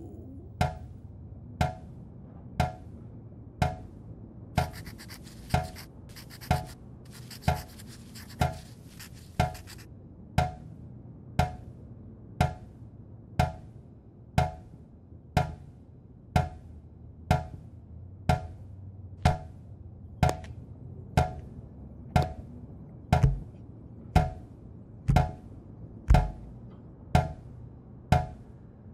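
A tap dripping at a steady pace of about one drop a second, each drop a short, sharp plink, over a low steady drone. A faint scratchy hiss runs from about five to ten seconds in, and a couple of the drops near the end land with a heavier low thud.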